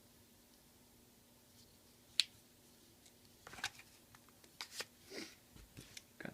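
Small pocketknives being handled: one sharp click about two seconds in, then a few softer clicks and brief rustles.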